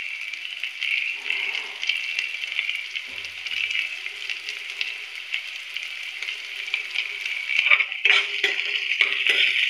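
Onions, whole spices and slit green chillies sizzling steadily in mustard oil in a steel kadai, with frequent small crackling pops. About three-quarters of the way through, a spoon stirs and scrapes against the pan.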